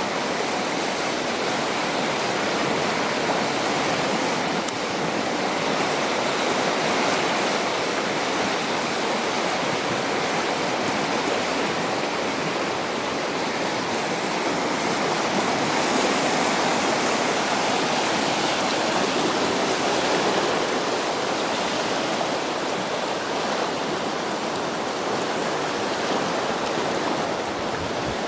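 A river in flood: high, fast floodwater rushing steadily.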